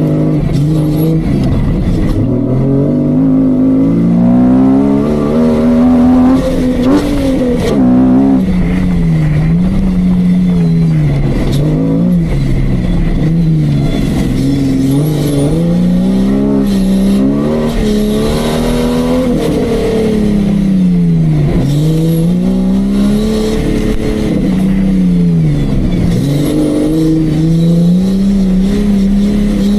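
Off-road 4x4's engine being revved up and down over and over, its pitch rising and dropping every few seconds, loud throughout.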